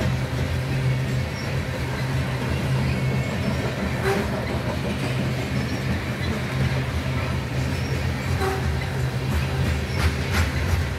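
Covered hopper cars of a soybean freight train rolling past, a steady rumble of steel wheels on rail with a few clicks of wheels over rail joints, more of them near the end.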